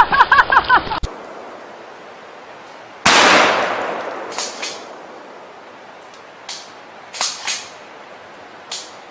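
A single gunshot from a long gun about three seconds in, with a long decaying tail. It is followed by several fainter short, sharp sounds.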